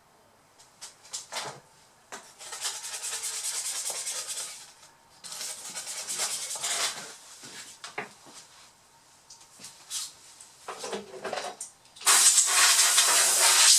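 Plastic laptop bottom case being handled and rubbed: a few clicks and knocks, then rough scraping hiss in stretches of a second or two, with the loudest, steadiest stretch starting about twelve seconds in.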